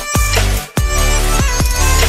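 Background electronic music with a heavy bass beat, briefly dropping out about two thirds of a second in.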